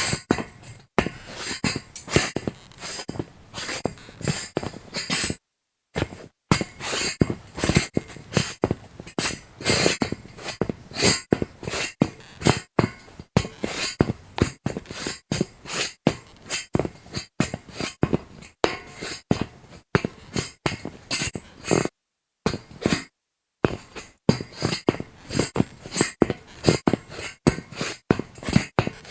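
Sneaker footsteps on a metal grate: a long series of sharp steps, with two brief silent breaks.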